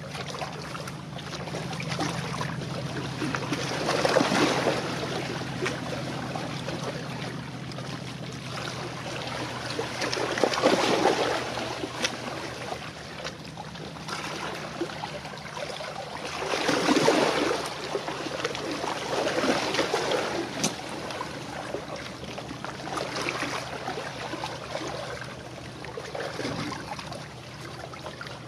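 Small waves lapping and splashing at the water's edge, swelling up every few seconds, over a steady low hum from the passing container ship's engine.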